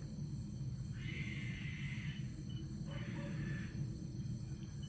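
Two harsh, cat-like cries from an unidentified wild animal: a longer one about a second in and a shorter one about three seconds in. Insects chirr steadily underneath.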